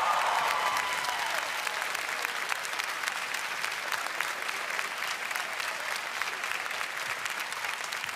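Studio audience applauding, the sound slowly dying down; the last held note of the song fades out in the first second.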